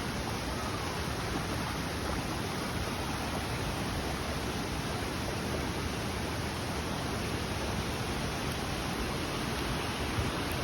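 Steady rushing of flowing water from a mountain stream, an even hiss with no breaks.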